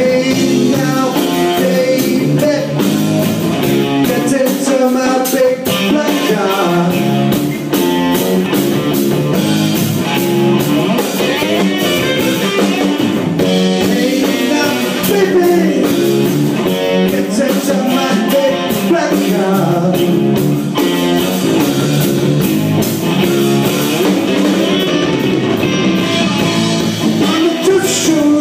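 A rock band playing blues-rock, with guitar and singing.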